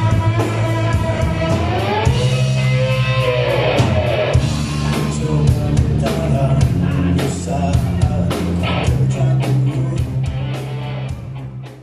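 Live rock band playing: a vocalist singing over electric guitars and a drum kit, with steady drum hits and sliding sung notes. The sound fades away near the end.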